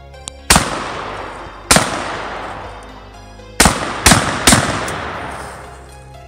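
Five 12-gauge shots from a Rock Island Armory VR80 semi-automatic AR-style shotgun: two about a second apart, a pause, then three in quick succession about half a second apart. Each shot is followed by a fading tail of about a second.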